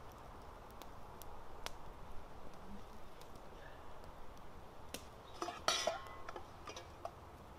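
A camp mug clinks and scrapes against a metal cooking pot as it is set down, a short clatter with a brief metallic ring about three-quarters of the way in. Light crackling and snapping of a small campfire comes before it.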